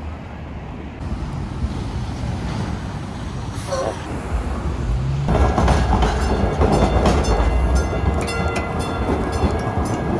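Steady low rumble and rattle of a moving vehicle, growing louder about five seconds in, with scattered clicks.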